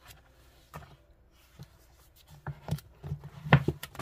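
A book handled by hand: pages flipped and rustling, then the book closed and laid on a wooden desk. Scattered soft clicks at first, then a busier run of knocks and rustles in the last two seconds, the loudest knock about three and a half seconds in.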